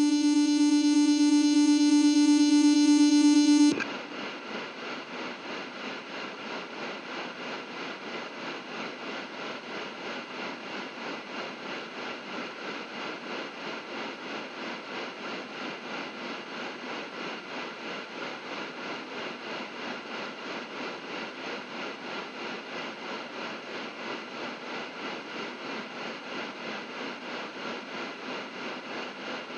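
Ambient distorted electric-guitar feedback. A loud sustained feedback note swells for a few seconds, then cuts off abruptly about four seconds in, leaving a quieter steady wash of noisy drone that pulses evenly.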